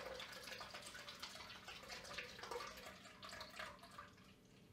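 Shaken cocktail trickling faintly in a thin stream from a stainless-steel three-part cocktail shaker into a cocktail glass. The pour tails off near the end.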